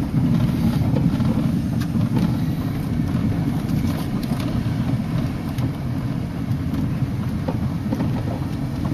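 A car driving slowly, its engine and tyres making a steady low rumble heard from inside the cabin.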